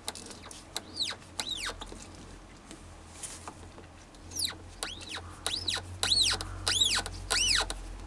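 6 mm tap squealing in short strokes as the lathe chuck is turned by hand to cut a thread in a blind hole. Each squeal rises and then falls in pitch: two come about a second in, then a faster run of about six, roughly half a second apart, near the end. A faint steady hum sits underneath.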